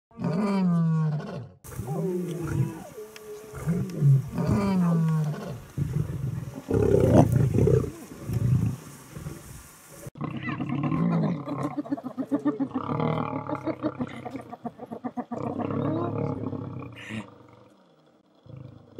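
A lion growling and snarling amid the calls of a clan of spotted hyenas in a fight. The calls rise and fall in pitch, and the sound changes abruptly twice, about two seconds and ten seconds in.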